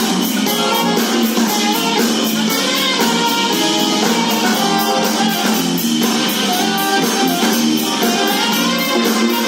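Saxophone playing a melody over a backing track of guitar and drums, with a steady hi-hat beat.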